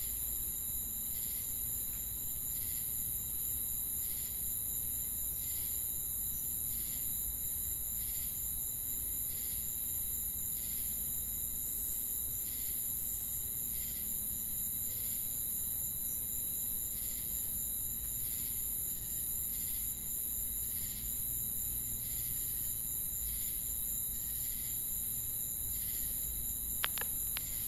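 Crickets chirping at night: a steady high trill with a regular chirp repeating a little faster than once a second.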